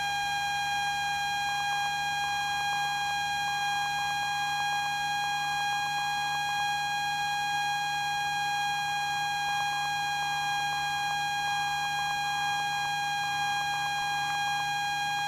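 A steady, buzzy electronic tone on the aircraft intercom audio, holding one pitch without a break.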